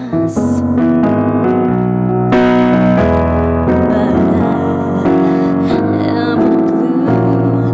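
Electronic keyboard played with a piano sound: sustained chords changing about once a second in an instrumental passage of a song.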